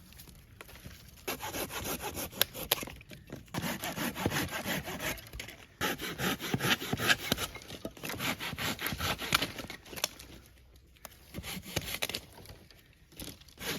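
Hand saw cutting through wood in quick back-and-forth strokes, in several bouts with short pauses between them.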